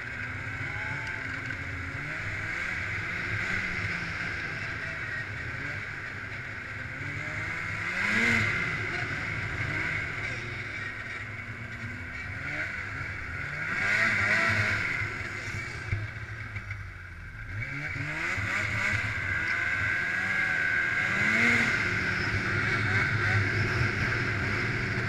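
Snowmobile engine running under way, its revs rising and falling in repeated surges as the throttle is worked. It eases off briefly about two-thirds of the way through, then picks up again.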